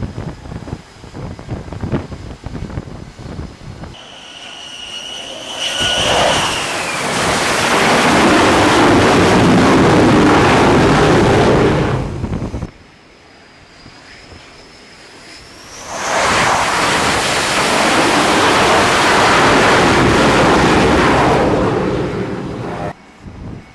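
Carrier jet fighters running their engines up to full power on the catapult. First, a whine climbs into a loud, steady jet blast that cuts off abruptly about midway. After a quieter gap, an F/A-18 Super Hornet's engines blast again for several seconds, then fade near the end, with wind noise on the microphone at the start.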